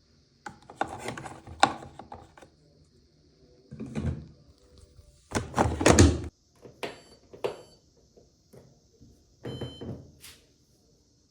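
A series of irregular thumps and knocks with handling noise, the loudest about six seconds in.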